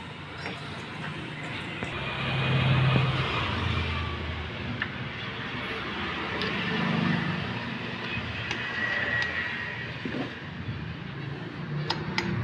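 Motor vehicle traffic rumbling past, swelling louder about two to four seconds in and again around seven seconds. A couple of sharp clicks near the end.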